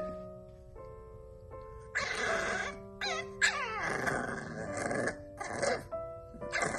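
Tiny French bulldog puppy complaining in a string of short grumbles and whines, several in a row from about two seconds in, over background music.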